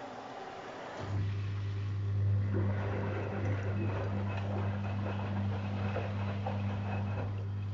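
A pump in a Zanussi Jetsystem Turbodry ZWD 1000 washer-dryer switches on about a second in and hums steadily, with an irregular crackling noise over the hum for a few seconds. Before it starts there is a steady hiss.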